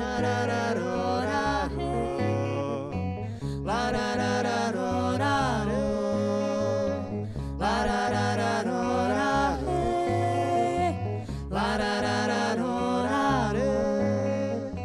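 A live acoustic band plays a passage without lyrics between verses. Bass guitar notes run underneath a melodic lead line that comes in phrases of about three seconds, sliding between notes.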